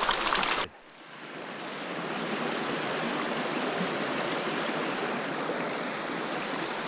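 Creek water rushing steadily. The sound drops away abruptly under a second in, then builds back up to a steady rush.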